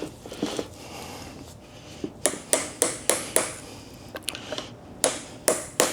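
Light hammer taps driving a plastic cover off a steering rack: a run of five sharp taps about a third of a second apart starting about two seconds in, then three more near the end.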